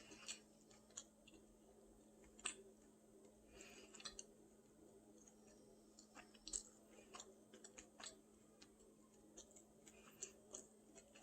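Near silence with faint, scattered chewing and mouth clicks from someone eating, over a faint steady hum.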